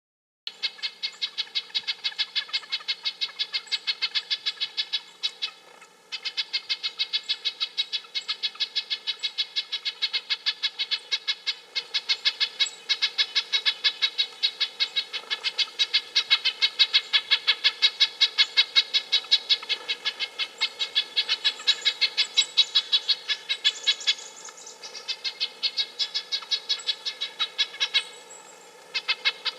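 Red-breasted nuthatch calling: a fast, even run of short, tinny notes, about six a second. It starts about half a second in and breaks off briefly a few times.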